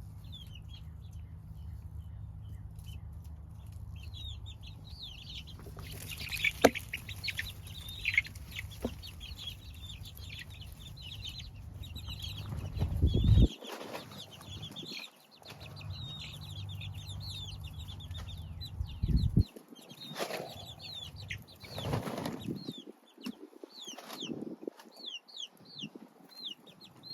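Baby chicks peeping: many short, high chirps overlapping continuously. Now and then there is rustling and a few bumps. Underneath runs a low steady hum that cuts off about halfway through, comes back briefly and cuts off again.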